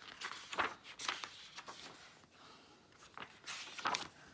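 Quiet rustling and soft taps of paper being handled: the pages of a glossy player's guide booklet being leafed through, a few short irregular crinkles.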